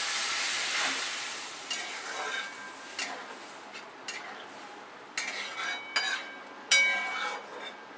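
Water sizzling in a hot kadhai of fried masala, dying down over the first second or two, as the rajma gravy is made. Then a metal spatula stirring and scraping the pan, with several sharp clinks that ring briefly; the loudest comes near the end.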